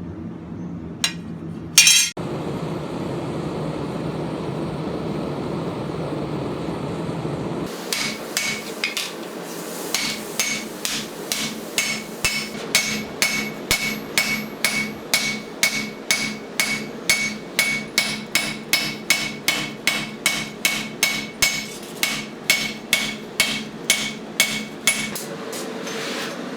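Hammer blows on hot steel over an anvil, hand-forging a lawnmower blade into a machete: a steady rhythm of about two ringing strikes a second from about eight seconds in. Before that come two sharp knocks and a steady rushing noise.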